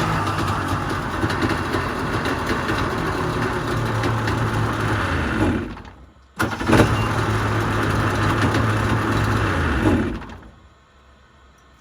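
Yamaha XL1200 jet ski's two-stroke engine running, then slowing with a falling pitch and dying about six seconds in. It fires again at once, runs steadily, and near the end is shut off and winds down.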